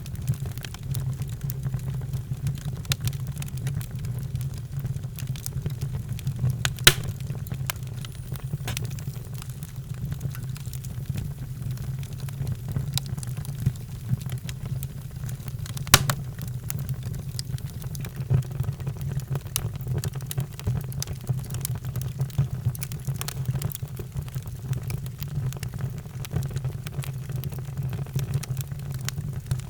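Fireplace fire crackling, with frequent small snaps over a steady low rumble, and two louder pops about seven and sixteen seconds in.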